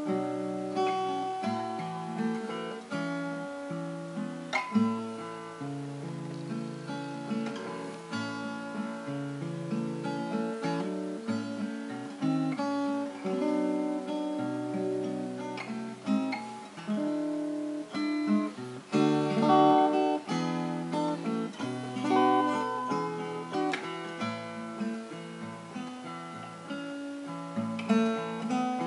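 Solo 2006 Collings 00-1A small-bodied steel-string acoustic guitar, fingerpicked, playing a Christmas medley with bass notes under a melody line.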